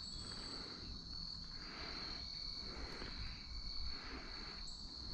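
Crickets singing: a steady, unbroken high-pitched trill, over a low rumble.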